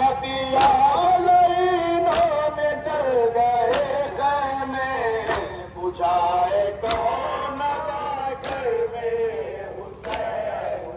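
Men chanting a Shia nauha lament, with a sharp slap about every one and a half seconds keeping time: chest-beating (matam) in step with the recitation.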